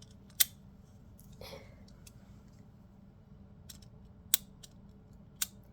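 Plastic plates of a 3D-printed magnetic slider fidget clicking together as they are slid and snapped into place: a few sharp clicks, the loudest about half a second in and two more about four and five seconds in.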